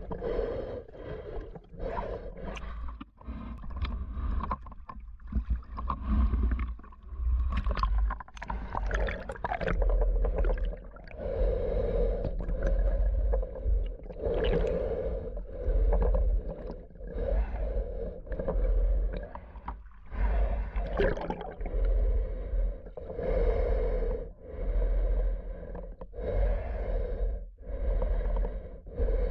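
Muffled underwater sound of a snorkeler swimming, heard through a submerged camera. It comes in deep, rhythmic swells about every second and a half.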